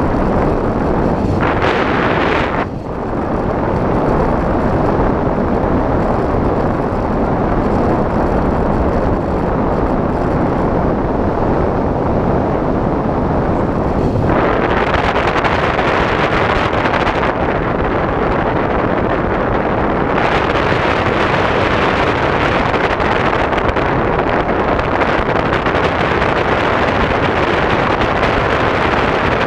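Wind rushing over the onboard camera microphone of an FPV RC plane gliding with its motor off: a steady rushing noise with no motor whine. It turns hissier about halfway through.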